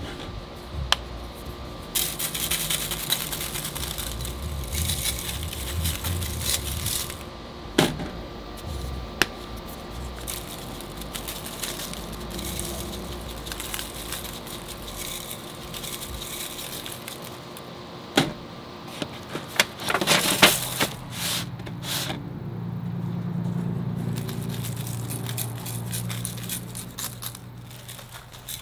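Handling noises of seasoning meat: scattered clicks and knocks, rattling and scraping, with stretches of rustling over a steady faint hum.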